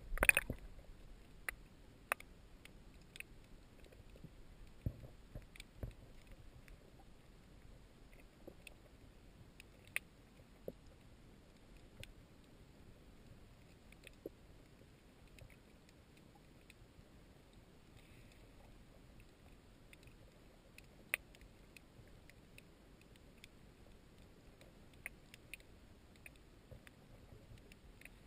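Underwater ambience heard through a sealed camera dive housing: a faint muffled hiss with scattered sharp clicks and ticks at irregular intervals, and a louder cluster of knocks right at the start.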